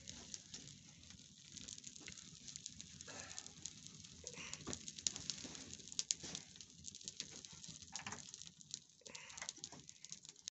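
A fire of dry twigs and small branches crackling, with many quick, irregular snaps and pops as the thin wood burns.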